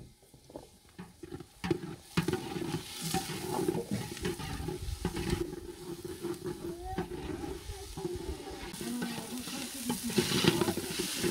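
Chopped onions sizzling in oil in a large metal pot while a metal ladle stirs and scrapes them around the pot. It is quieter for the first couple of seconds, then the frying and scraping grow louder.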